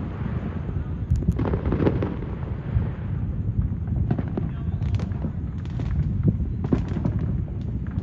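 Fireworks going off: a steady low rumble of booms with sharp cracks and pops every second or so.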